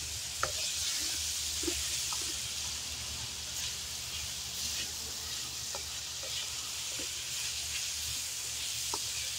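Asparagus, snow peas, onion and garlic sizzling as they sauté in a hot wok, with light scrapes and taps from a spatula stirring them. A low steady rumble runs underneath.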